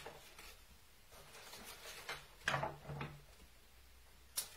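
Quiet handling of foliage stems and leaves at a table, with a few soft knocks and rustles, and a sharp snip of scissors cutting a stem near the end.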